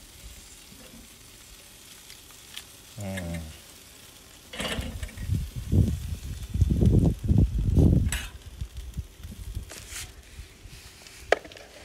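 Chicken sizzling on the grate of a charcoal Weber kettle grill. Loud, irregular low rumbles start about four seconds in and die down after about eight, with a couple of sharp clicks near the end.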